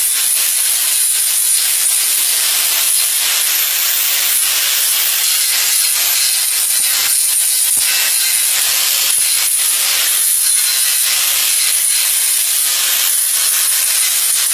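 Small handheld grinder running steadily against diamond plate metal, a loud, even, high-pitched hiss that holds without a break or change in pitch.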